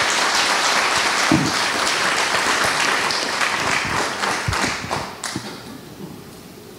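Audience applause, dense clapping that fades out about five seconds in.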